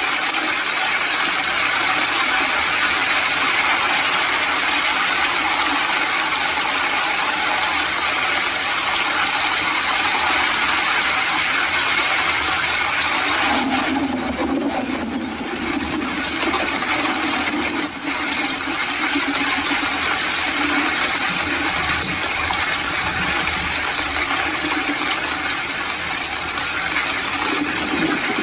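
Rain falling on a vehicle's windscreen and roof, heard from inside the cabin as a loud, steady hiss. The hiss thins briefly about halfway through.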